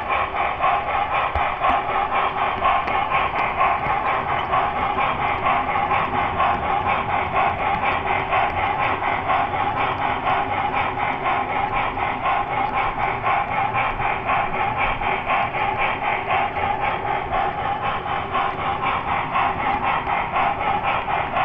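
Model train, an ES44AC locomotive pulling grain hoppers, running steadily along the track as heard from a camera riding on it: a continuous whirring, whining motor-and-wheel noise with rail clatter and a quick, even pulsing.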